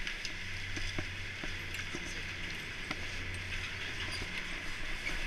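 Steady low hum of a Garaventa-CTEC Stealth II detachable chairlift terminal's machinery running while a six-passenger chair comes round to load, with a haze of skis shuffling on snow and a few faint clicks.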